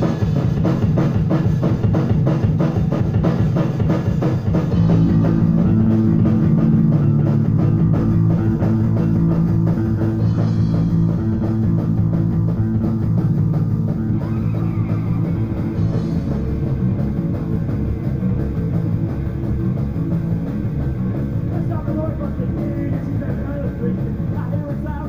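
Live rock band playing a song: electric guitar, bass guitar and drum kit together, loud and steady throughout.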